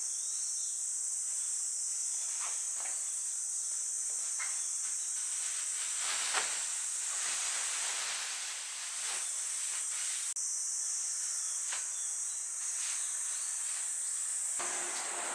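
Insects shrilling steadily at a high pitch, with scattered light clicks and taps over it.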